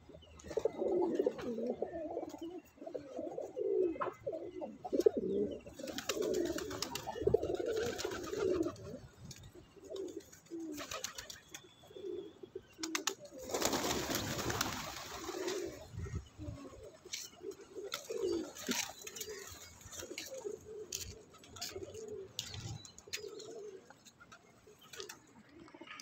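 A flock of pigeons cooing, densely at first and more sparsely later. About halfway through, a rush of wing flapping as many birds take off at once.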